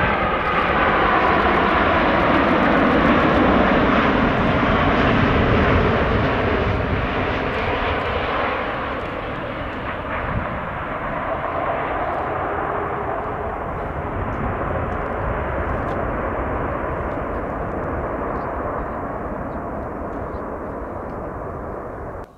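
Jet engines of a Boeing 787 Dreamliner landing. A loud roar with a whine falling in pitch as the plane passes over in the first several seconds, then a steadier roar through touchdown and rollout that slowly fades and cuts off suddenly at the end.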